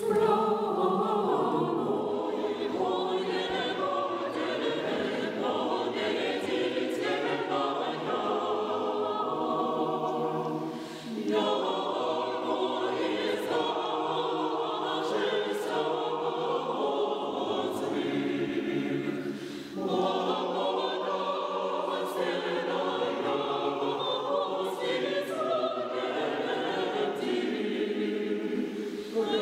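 Mixed choir of men's and women's voices singing unaccompanied, with brief breaks between phrases about eleven and twenty seconds in.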